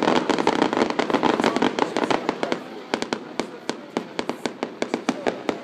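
Fireworks display: a rapid, irregular rattle of sharp bangs and crackles, dense at first and thinning out to more spaced pops in the second half.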